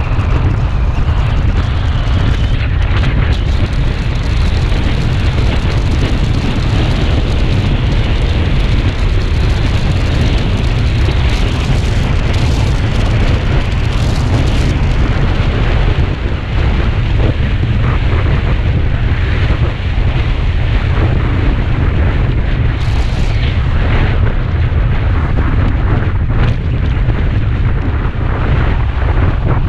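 Heavy wind buffeting on the microphone of a Kawasaki Ninja 250 riding at road speed: a loud, steady low rumble, with engine and road noise underneath.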